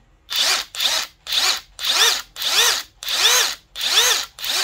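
A Parkside Performance PDSSAP 20-Li B2 cordless impact driver's brushless motor runs up and down in short blips, about two a second, as the trigger is pulled and released; each blip climbs in pitch and falls back. The speed follows the trigger in a way the owner finds sluggish.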